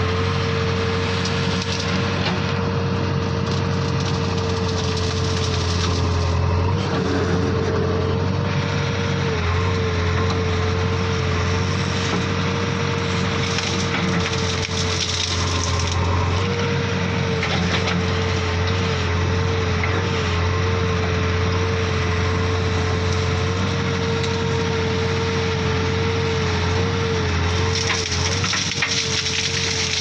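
JCB 3DX backhoe loader's diesel engine running steadily under work, with a continuous whine that wavers slightly now and then over a dense, coarse mechanical noise.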